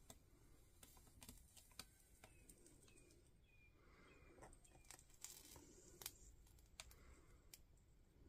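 Near silence, with faint scattered clicks and ticks of small handwork while a wire is soldered into a spade terminal.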